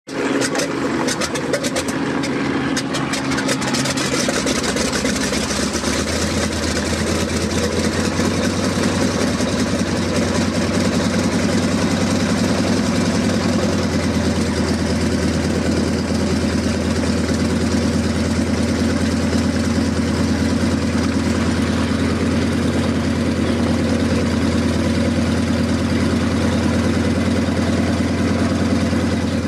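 The Juka Experimental (Su-26) aerobatic plane's nine-cylinder radial engine just after starting, crackling irregularly for the first few seconds, then settling into a steady idle. Its note shifts slightly about six and again about fourteen seconds in.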